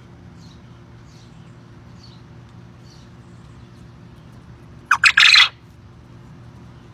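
Male Coturnix quail crowing once about five seconds in: a loud, short call of two quick notes run into a longer one. Faint high chirps and a steady low hum sit underneath.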